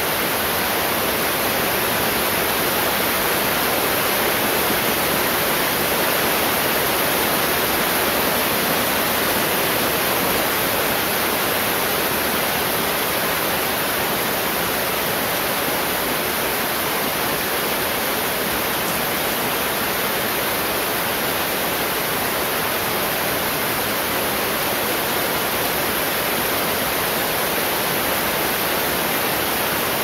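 Heavy rain falling steadily, a dense even hiss with no sudden sounds.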